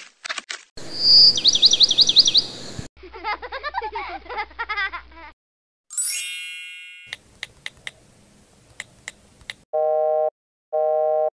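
A string of cartoon sound effects: a warbling whistle over a hiss, a fast chattering, a bright ringing ding, a few light ticks, then two short electronic beeps like a phone's busy signal.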